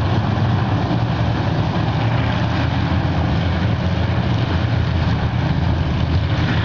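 A pack of dirt-track race cars running together around the oval, heard as a steady, loud, low drone of several engines.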